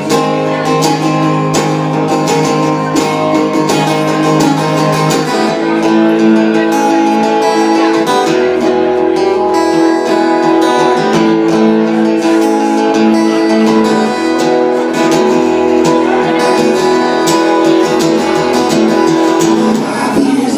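Acoustic guitar strummed steadily in an instrumental passage of a folk-blues song, the chords changing every few seconds, with no singing.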